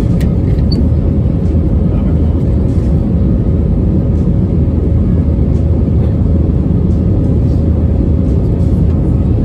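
Cabin noise of an Airbus A320-family airliner in flight: a steady, loud, deep roar of jet engines and rushing air, with a faint steady hum on top.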